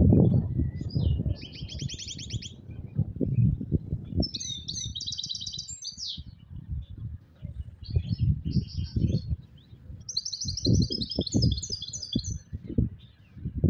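European goldfinch singing in bursts of rapid, twittering trilled phrases, four or five runs with short gaps between them. Low knocks and bumps sound throughout, loudest at the very start.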